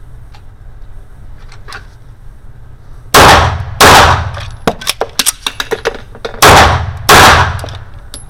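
A Bul 1911 single-stack 9x19 pistol firing two quick shots, then a short run of small metallic clicks and clinks, then two more quick shots, which fits shooting the pistol to slide lock and reloading.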